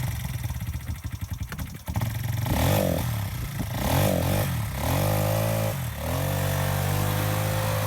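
Small off-road vehicle engine idling with an uneven pulse, then revved in several quick rising and falling blips, followed by a longer rev that settles into a steady higher-speed run for the last two seconds.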